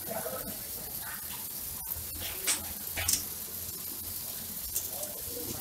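Freshly roasted coffee beans rustling and hissing as the stirring arm sweeps them around a coffee roaster's cooling tray, over a low steady hum. Two short, sharp hisses stand out a little past the middle.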